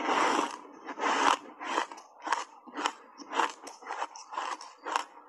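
A woman chewing a mouthful of hard block ice coated in matcha powder. Two loud crunches come in the first second and a half, then a quick run of short, sharp crunches about three a second as the ice is broken up between the teeth.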